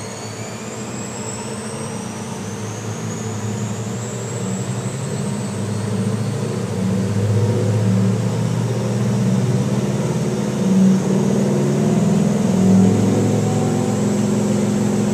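Ross DPM-1 double planetary mixer running and speeding up, its drive motor and high-viscosity blades turning in the stainless mix can. A steady hum with a whine that rises slowly in pitch, growing louder over the first several seconds.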